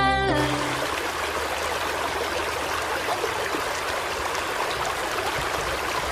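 Rushing river water tumbling over rapids and falls, a steady, even white-water rush. The tail of a music track cuts off just after the start.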